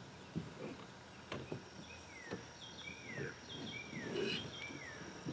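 A bird calls with short slurred, falling whistles, several times, over a steady high insect buzz. A few sharp knocks and low scuffs come from the plastic hull of a pedal boat being shoved over the grassy bank toward the water.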